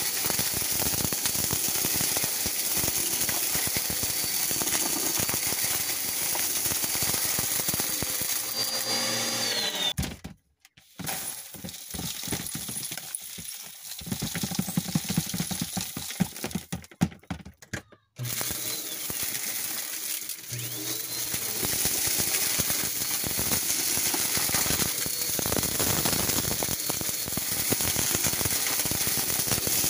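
PowerForce upright vacuum running over carpet, sucking up a glitter-and-bead mix that clatters through it under a steady whine. The motor winds down and stops about nine seconds in. During the pause the collected mix rattles as the clear dust cup is emptied into a plastic tote, and the vacuum starts up again about eighteen seconds in.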